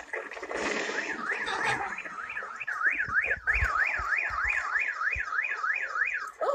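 Car alarm sounding, a warbling siren sweeping up and down about three times a second, starting about a second in as snow falls onto the parked cars, with a few dull thumps beneath it. Heard through a TV's speaker.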